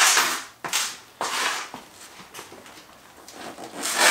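A small steel-tube chassis on drag tyres being tipped up on end on a concrete floor: a few short scrapes and knocks, the loudest at the start and again near the end.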